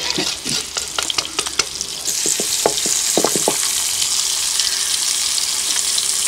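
Stuffed mussels shallow-frying in oil in a pan, sizzling. For the first two seconds a metal grater scrapes and clicks as lemon is grated over the pan; from about two seconds in the sizzle turns louder and steady as the mussels are turned by hand.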